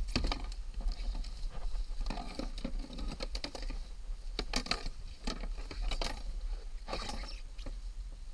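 Gloved hands unhooking a small fish on a plastic kayak: irregular clicks, taps and rustles of glove, hook, line and rod, over a steady low wind rumble on the microphone.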